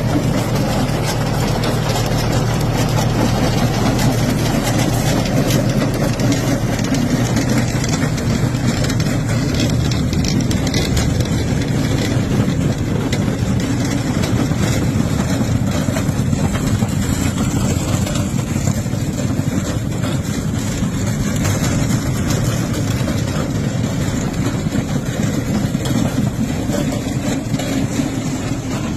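Apple harvesting machine's engine running steadily at an even speed.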